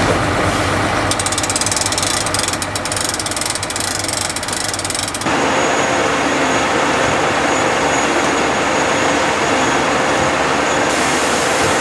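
Hopper-bottom grain trailer's gate crank ratcheting with rapid clicks over a low engine hum for the first few seconds. Then, suddenly, a steady mechanical rush with a thin whine as the drive-over grain conveyor runs under the opened hopper.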